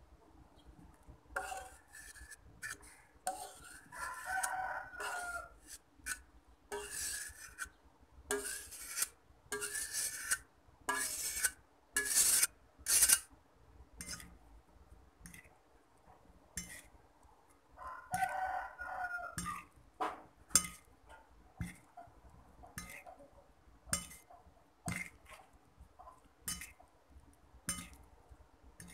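A metal fork scraping and tapping on a ceramic plate as instant noodles are tossed with their seasoning, in uneven strokes, the loudest around twelve seconds in. A rooster crows twice, about four seconds in and again about eighteen seconds in.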